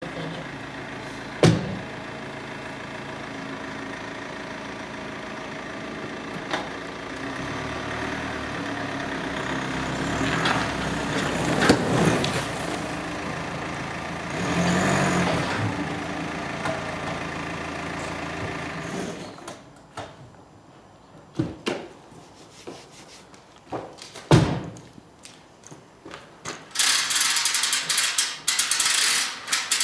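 The towing vehicle's engine runs steadily while the bale trailer is backed onto a round straw bale, and it stops about two-thirds of the way through. A couple of single knocks follow, and near the end the trailer's hand winch starts ratcheting in a rapid run of clicks.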